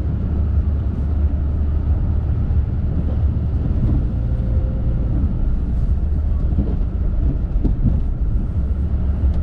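Snow plow truck running, a steady low engine and road rumble.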